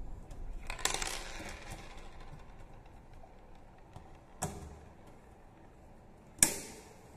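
Metal wire fan guard being handled and fitted together, clinking: a rattling jangle about a second in, a click around four seconds in, and a sharp metallic click with a short ring near the end, the loudest.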